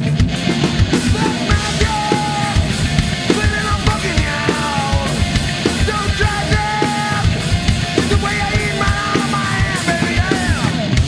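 Rock band playing live and loud: electric guitar, bass guitar and drum kit, with a singer's voice on top and a long falling note near the end.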